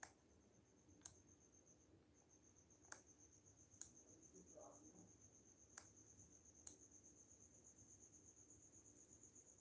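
Faint, steady high-pitched trill of a chirping cricket, with a short break about two seconds in. Sharp single clicks sound every second or two over it.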